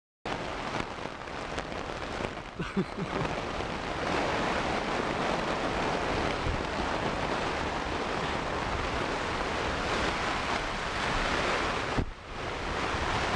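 Rain falling steadily on a tent's fabric, a dense even hiss that drops out briefly about twelve seconds in.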